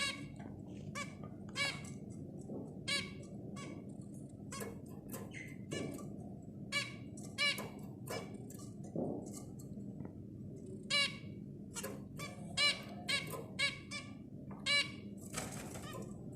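Zebra finches calling: dozens of short, clipped calls at irregular intervals, a few close together, over a steady low hum.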